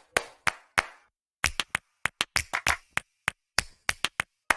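Percussive part of the background music: quick, sharp claps or taps in an uneven rhythm, with a short pause about a second in.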